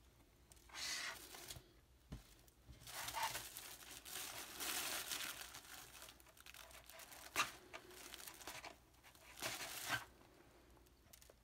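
Crinkling and rustling of a new dress shirt's folded packaging as it is handled, in several irregular spells with a sharp click about seven seconds in.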